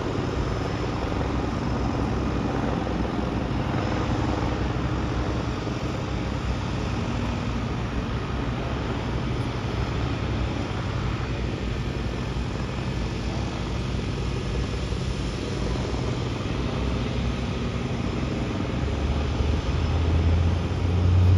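Cessna 208 Caravan floatplane's turboprop engine and propeller running steadily as it taxis on the water. Near the end the drone swells as power comes up for the takeoff run.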